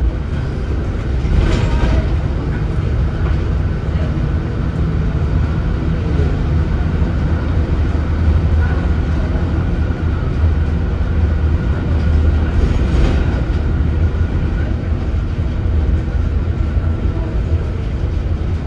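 Leyland Atlantean AN68 double-decker bus under way, its Leyland O.680 six-cylinder diesel running with a steady low drone and a thin steady whine over it. Brief rattles come twice, about a second and a half in and again near thirteen seconds.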